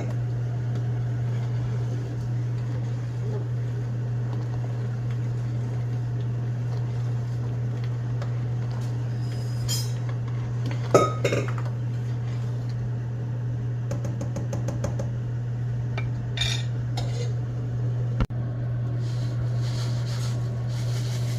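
A metal utensil clinks and scrapes against a cooking pot a few times, with the sharpest knocks about ten, eleven and sixteen seconds in, over a steady low hum.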